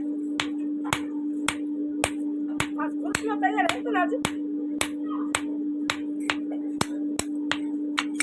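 Hammer blows on metal at a steady rhythm, about two strikes a second, over a constant low hum: a blacksmith hammering an axe head on the anvil during repair.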